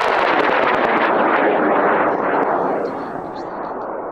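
High-power rocket motor burning after lift-off: a loud, steady rushing noise with crackle through it, fading over the last couple of seconds as the rocket climbs away.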